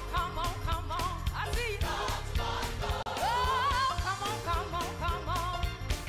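Recorded music: a singer over a band with a steady beat. The song breaks off about three seconds in and another sung passage follows.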